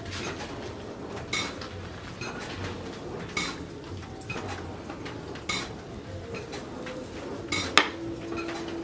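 Sharp, ringing metallic clinks at a blacksmith's forge, about one every two seconds and the loudest near the end, over a low steady rumble.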